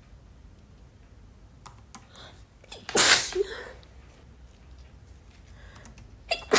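A woman sneezing loudly once, about three seconds in, as part of a sneezing fit brought on by a head cold. A second sneeze begins right at the end.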